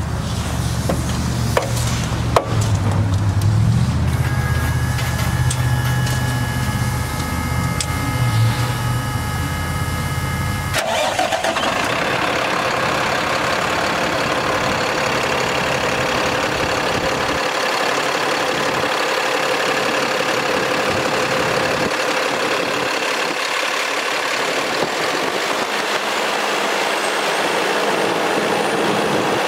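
Cummins ISC diesel engine of a Freightliner M2 water truck running at idle. About eleven seconds in, the sound switches abruptly from a low drone to a brighter, hissing whir, as the engine is heard up close in the open engine bay.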